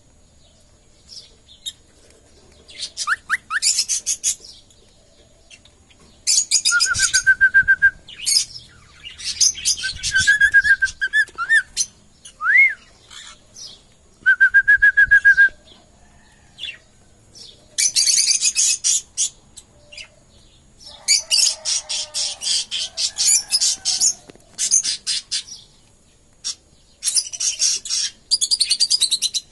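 Small pet parrots chattering in quick high bursts that come and go, mixed with a few short, steady whistled notes and one note that rises and falls.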